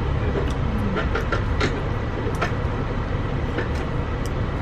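Car noise heard from inside the cabin: a steady low rumble, with a few light clicks scattered through it.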